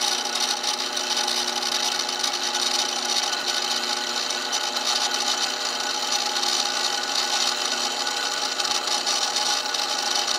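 Drill press running steadily, its twist bit cutting through a metal plate: a constant motor hum with the hiss of the bit cutting.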